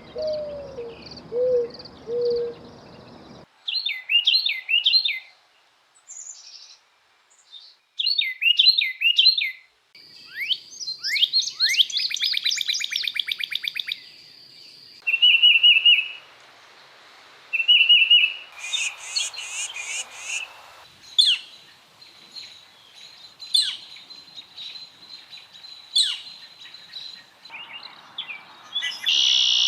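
A run of different wild birds calling and singing, one recording after another with sudden changes between them: low hooting notes at the start, then repeated whistled phrases, a fast trill, and bursts of short repeated chirps.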